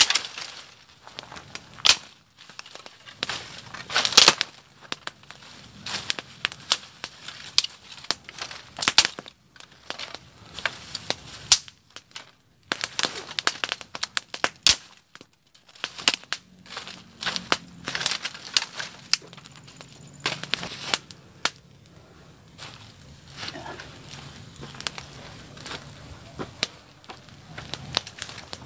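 Dry grass, leaves and sticks rustling, crunching and snapping in irregular sharp crackles as they are pulled up by hand and pushed into a smoking pile to build a fire.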